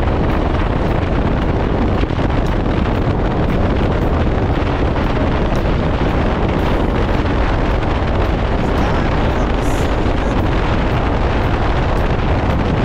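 Steady wind buffeting on the microphone of a moving motorcycle, with the Bajaj Dominar 400's single-cylinder engine running underneath at a steady cruise.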